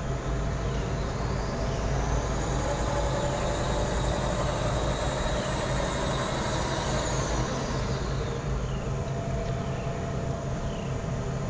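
Mean Green battery-electric ride-on mower humming steadily as its wing decks are raised back up by the wing lift. A fainter electric whine rises and then falls in pitch in the middle.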